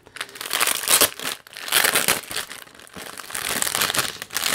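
Clear plastic packaging bag crinkling in irregular rustles as hands squeeze and turn it.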